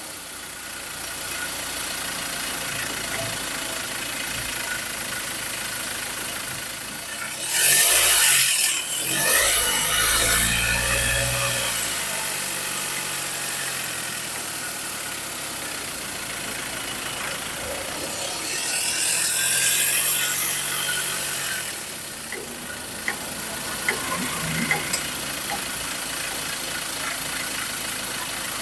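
Ford Ranger pickup on the move, heard through a microphone strapped to its suspension: steady road and engine noise that swells loudly twice, with a few small sharp knocks near the end. This light suspension noise is what the mechanic puts down to a worn stabilizer-bar link.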